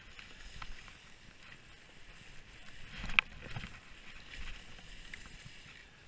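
Skis sliding and turning on snow, a continuous hiss broken by a few short sharp clicks, the loudest about three seconds in.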